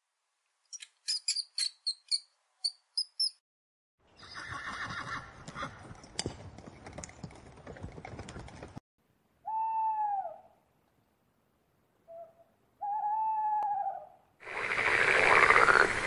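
A run of short, high-pitched guinea pig squeaks, then a stretch of noise, then two drawn-out calls of about a second each. Loud frog calling starts near the end.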